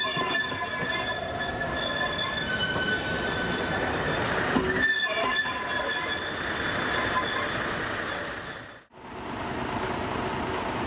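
Railway coaches rolling slowly over jointed station track and points, the wheel flanges squealing in several steady high tones while the wheels click over the rail joints. Near the end the sound fades out briefly and a steady noise follows.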